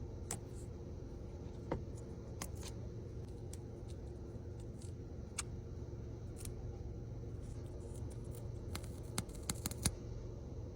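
Scattered small clicks and scrapes of hand tools working on a smartphone during a screen replacement, with a quick run of sharper clicks near the end, over a steady low hum.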